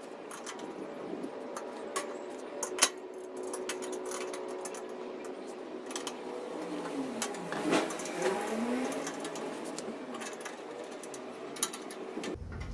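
Hand screwdriver driving screws into the metal leg brackets of a grill-table frame, with scattered sharp metal clicks and knocks as the parts are handled. A steady mechanical hum runs underneath, dipping and rising in pitch once about halfway through.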